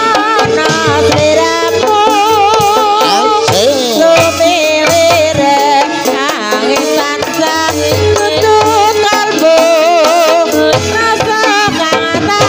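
Live Javanese gamelan playing dance music: kendang hand-drum patterns over metallophones, with a wavering, vibrato-laden melody line, most likely a female singer.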